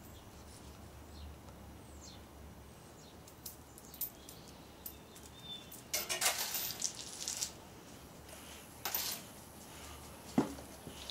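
White boxer puppy's claws clicking and scuffing on ceramic patio tiles in scattered light taps, with a denser clatter from about six to seven and a half seconds and a sharp knock near the end.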